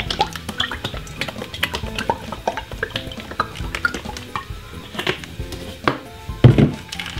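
Kitchen handling clatter: light clicks and knocks while olive oil is drizzled from a bottle over a tray of floured chicken pieces, with a louder thump about six and a half seconds in. Quiet background music runs underneath.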